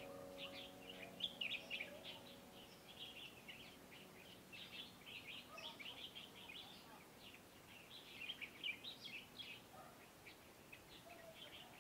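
Small songbirds chirping faintly in many quick, short calls. A piano chord from the background music fades out over the first two or three seconds.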